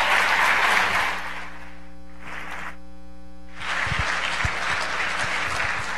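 Audience applauding. The applause thins out about two seconds in while a short stretch of music plays, then picks up again.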